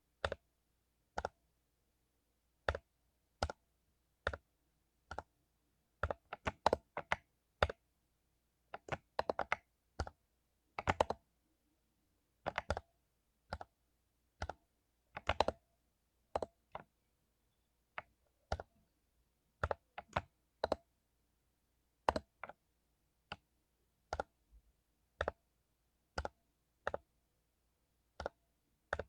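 Mechanical keyboard with lubed Cherry MX Silver linear switches: single keystrokes at an uneven, unhurried pace, each a short sharp clack, with a few quick runs of several keys together.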